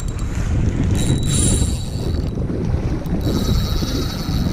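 Wind rumbling on the microphone over the sea while a fish is played on a spinning rod. The reel's drag buzzes high in two short spells as the fish takes line.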